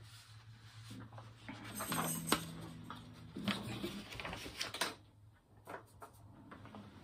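Sheets of paper being handled and shuffled: rustling with a few light knocks and clicks, the sharpest click a little over two seconds in, over a faint low steady hum.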